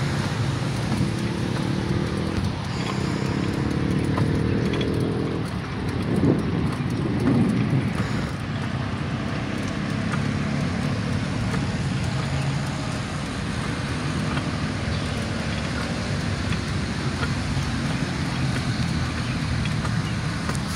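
Steady wind rush on the microphone of a handheld phone while riding a bicycle along a paved road.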